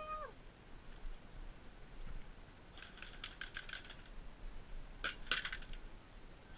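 Airsoft replicas firing: two short strings of sharp, rapid clicking shots, the first about three seconds in, the second briefly about five seconds in.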